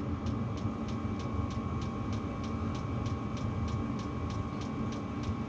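Diesel heater and a portable heater running: a steady hum with a light, regular ticking about five times a second, typical of a diesel heater's fuel pump.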